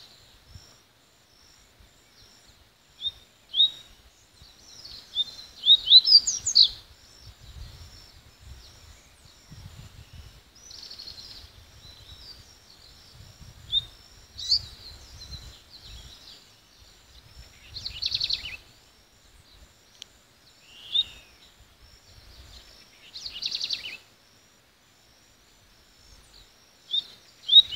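Papa-capim (seedeater) singing in short bursts of high, fast, sliding and trilled notes, several seconds apart, with a faint steadily repeating chirp behind.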